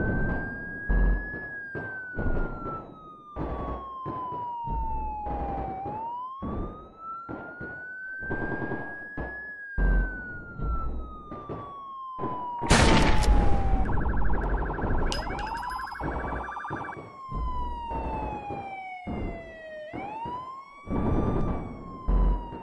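A siren wailing slowly up and down, over a run of repeated heavy thumps. About halfway through comes a loud burst of noise, then a steady buzzing tone for a few seconds.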